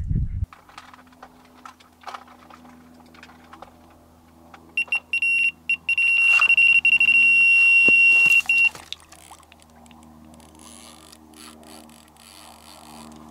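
Electronic carp bite alarm giving a few quick beeps, then one continuous high tone for about four seconds: a carp taking line on a run. It cuts off sharply.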